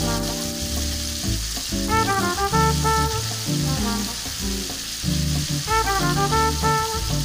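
Ground red spice paste sizzling as it fries in hot oil in a metal wok, under louder background music with a rhythmic bass line.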